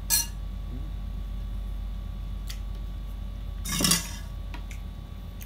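Metal spoon and ceramic plates clinking: a sharp clink just after the start and a longer, louder clatter about four seconds in.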